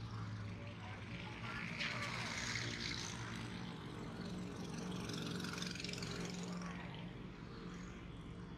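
Street traffic, mainly motorcycles passing on the road: a steady low engine hum throughout, swelling as vehicles go by about two seconds in and again midway.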